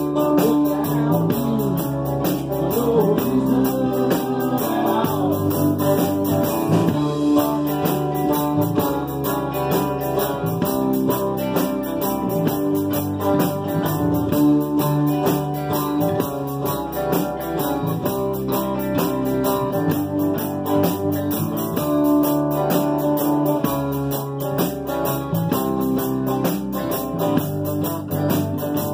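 A live band playing: acoustic guitars strummed in a steady rhythm over an electric bass, with some sliding notes in the first few seconds.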